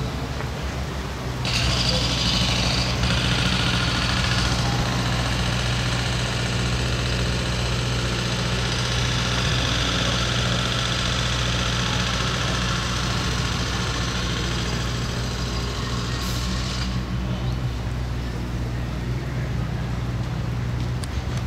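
An engine running steadily with a low, even hum. A hiss joins about a second and a half in and stops around seventeen seconds in.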